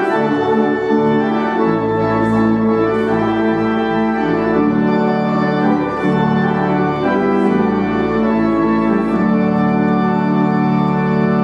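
Organ playing slow, sustained chords that move to a new chord every second or two.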